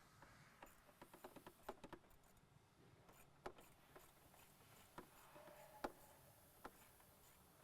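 Faint, irregularly spaced clicks and light metal ticks of a 10 mm wrench tightening a bolt on the intake box.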